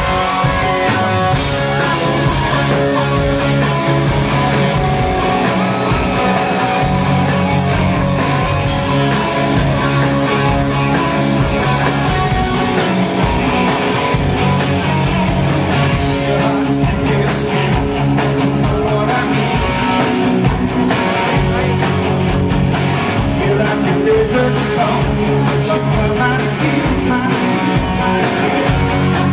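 Live rock band playing loud and steady: electric guitars, drums and a male lead singer, heard from the audience.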